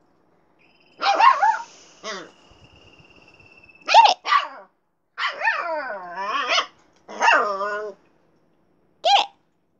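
Husky puppy barking and yowling in about seven high-pitched bursts, some short yips and some drawn out with the pitch bending up and down, with pauses between.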